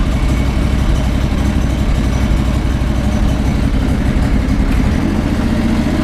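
John Deere 425 lawn tractor's Kawasaki V-twin engine running steadily right after an oil change, filling the new oil filter. It runs smoothly, with no missing or surging.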